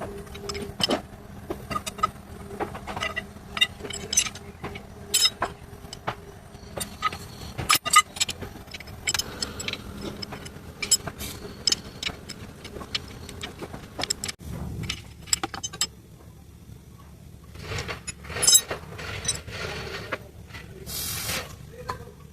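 Metal hand tools clinking and knocking on bolts and car parts as a fitting is worked loose, with many scattered sharp clicks. A short hiss about a second before the end.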